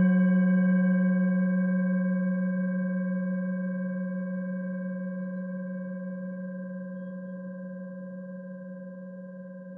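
A single low metal tone from a struck sound-healing instrument, ringing on and slowly fading away with a slight waver.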